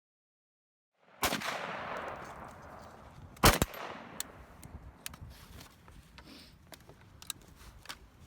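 Two blasts of rifle and Tannerite fire on a shooting range. The first comes about a second in and trails off in a long rolling echo; the second, a couple of seconds later, is sharper and louder. A few faint clicks follow.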